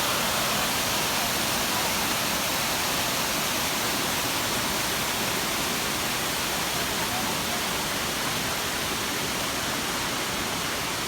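Waterfall rushing: a steady, unbroken wash of falling water, even in loudness throughout.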